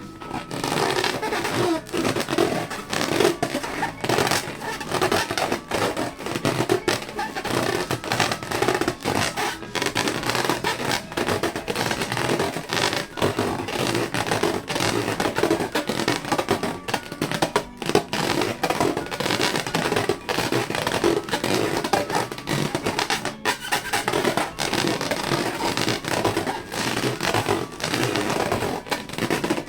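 Rubber balloons being squeezed and rubbed by hand: a dense, irregular run of squeaks, crackles and sharp clicks.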